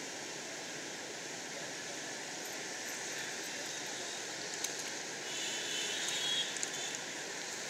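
Steady outdoor noise with light water sounds as a dog swims to the bank; a little over five seconds in comes a short, slightly louder spell of splashing, dripping and clicks as the dog climbs out of the water with a toy in its mouth.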